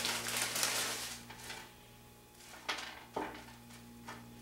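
Loose soil poured from a plastic zip bag onto a wooden table: a dense sandy hiss of dirt falling, with the bag crinkling, for about the first second, then a few light clicks and rustles as the bag and hand move over the table. A steady low hum runs underneath.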